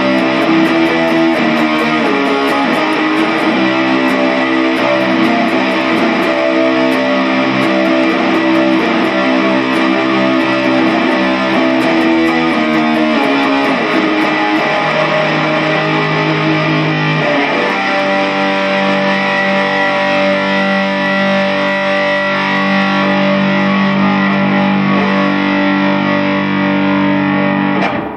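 Distorted electric guitar music: loud, dense sustained chords that shift about halfway through and cut off abruptly at the end, picked up by a Samsung Galaxy S III phone microphone.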